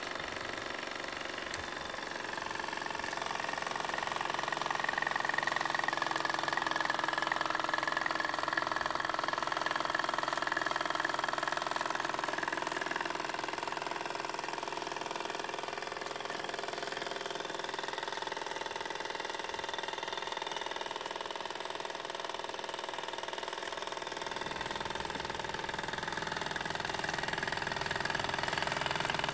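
A 1952 Fleischmann 120/1 toy steam engine running fast and steady under steam, with the light mechanical clatter of the tinplate sausage-maker accessory it drives by belt. It runs a little louder for several seconds after the start.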